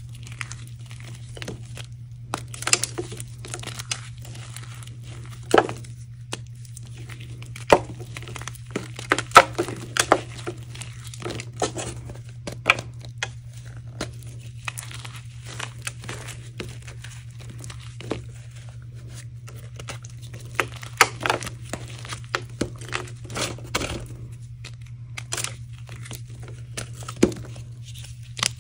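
Hardened, dried-out powder reform blocks crunching and crumbling as they are squeezed by hand and cut with a scraper. Irregular dry crunches and crackles come in clusters. A steady low hum runs underneath.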